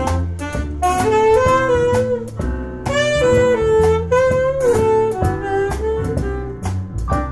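Live small-band jazz: a double bass plucked in a walking line under a saxophone playing the melody.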